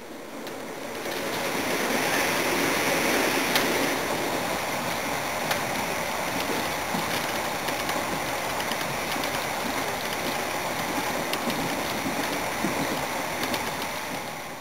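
Electric suburban train running at speed: a steady rushing noise of wheels on rails, with scattered sharp clicks, swelling in over the first two seconds and cutting off abruptly at the end.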